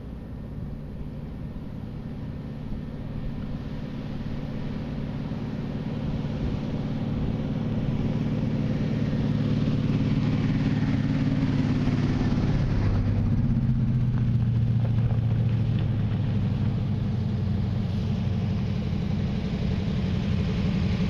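Lifted Jeeps on mud tires running at low speed, their engine note growing steadily louder as they approach over the first several seconds. About twelve seconds in the engine note drops lower and stays loud.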